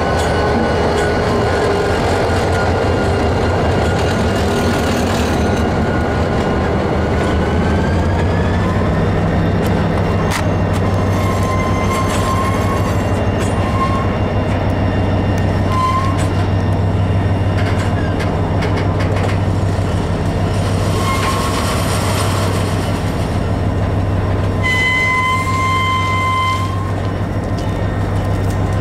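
A long freight train of tank cars rolls past close by, just behind its lead EMD DDM45 diesel locomotive. Under it runs a steady low rumble, with occasional clicks of wheels over rail joints. From about a third of the way in come short high-pitched wheel squeals.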